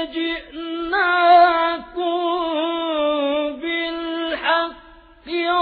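Male Quran reciter chanting a verse in the melodic, ornamented tajwid style: long held notes that waver and turn around each other. The voice drops away briefly near the end before coming back.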